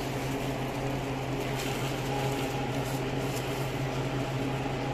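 Steady mechanical hum of shop equipment, such as a refrigerator or air conditioner, with a few faint crinkles of plastic bags of lentils being picked up and handled.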